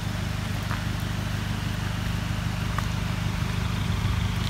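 A 4x4 vehicle's engine idling steadily, a low even drone.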